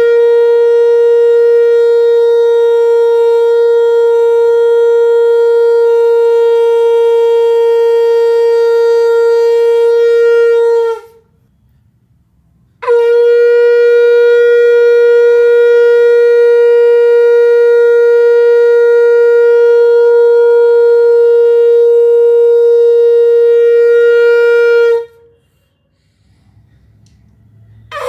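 Conch shell (shankh) blown in the ritual shankhnaad: two long, steady blasts of about twelve seconds each on a single held note, each dropping slightly in pitch as it ends. A short pause comes between the blasts, and a third blast starts right at the end.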